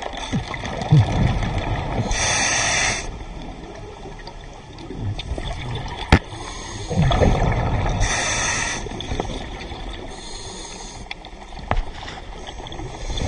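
A scuba diver breathing through a regulator underwater: hissing inhalations, one about two seconds in and another about eight seconds in, with a low bubbling rumble of exhaled air around them. A single sharp click comes about six seconds in.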